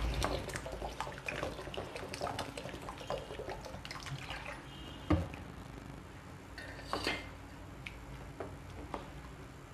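Water poured from a bottle into a pan of curry, with a wooden spatula stirring and scraping against the pan. There is a sharp knock about five seconds in and another near seven seconds.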